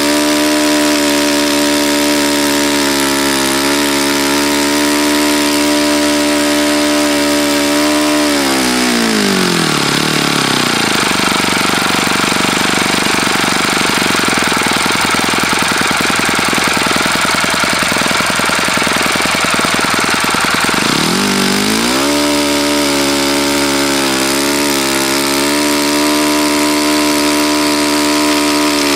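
OS FS-48 Surpass four-stroke glow engine with a 12x6 propeller running on a test stand, on crankshaft bearings that are clearly bad. It runs steadily, changes to a harsher, higher sound for about twelve seconds from around nine seconds in, then settles back to its earlier steady note.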